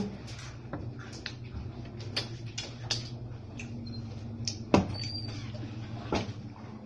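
Scattered crunches and clicks of rolled tortilla chips and Cheetos being handled and eaten, over a steady low hum. There is a sharp knock just under five seconds in and a smaller one about a second later.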